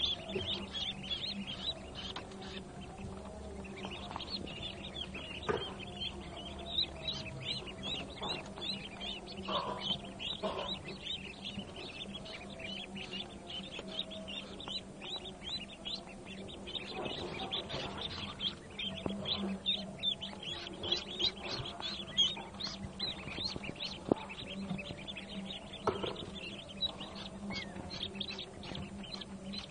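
Many newly hatched Pekin and hybrid ducklings peeping in a dense, continuous chorus of rapid high peeps. A steady low hum runs underneath.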